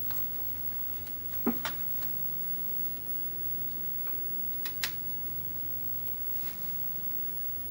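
Small sharp clicks and taps of a screwdriver working the screws that hold a laptop screen in place, coming in two quick pairs, over a faint steady hum.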